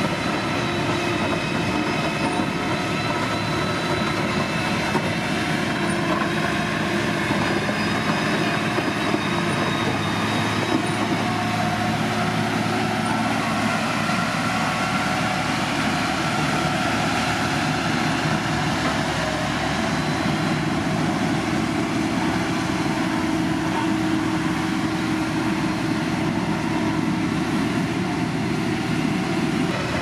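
Motor grader's diesel engine running steadily under load while it works gravel.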